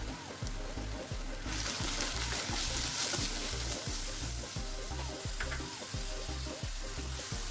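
Onion-tomato masala with spices sizzling in hot oil in a nonstick frying pan as it is stirred, the sizzle growing louder about one and a half seconds in. Background music with a steady beat plays under it.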